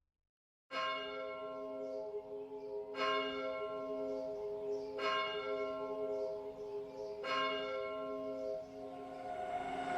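A church bell tolling, struck four times about two seconds apart. Each stroke rings on into the next. A rising rushing noise builds underneath near the end.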